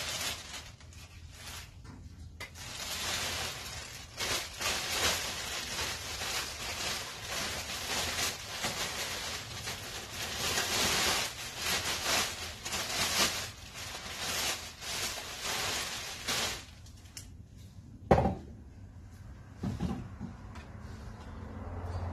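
Clear plastic bag crinkling and rustling as it is pulled off a pair of steel coil springs, then a sharp knock about eighteen seconds in and a lighter one soon after.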